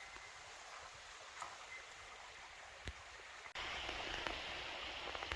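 Quiet forest ambience: a soft, steady hiss with a couple of small ticks, which cuts abruptly about three and a half seconds in to a louder, brighter rushing noise.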